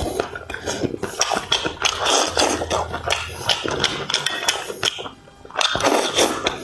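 Close-miked eating of braised fish in sauce: chewing, slurping and wet mouth smacks and clicks, with a brief lull about five seconds in.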